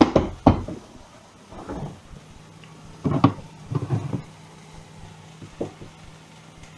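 Knocks and clatters of kitchenware being handled as a portion of potato salad is served out: a container, a spoon and a plate set down, with a cupboard or door shut. About six separate knocks, the loudest near the start and just past three seconds. A faint low hum sets in about two seconds in.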